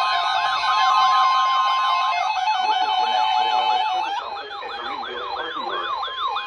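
Several NOAA Weather Radio receivers sounding their alert sirens at once for the weekly test: overlapping rapid warbling pitch sweeps, over a steady alarm tone that stops about two seconds in. About four seconds in some of the radios fall silent and the sound drops in level.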